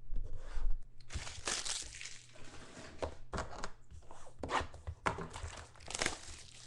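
A trading card pack wrapper being torn open and crinkled by hand: irregular crackling and tearing rustles.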